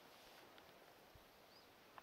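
Near silence: faint outdoor background hiss, with one faint, short, high chirp about three quarters of the way through.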